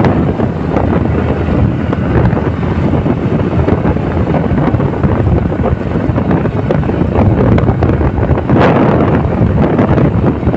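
Wind buffeting the microphone of a moving motorcycle, a loud, steady rush with road noise beneath, swelling in a stronger gust about eight and a half seconds in.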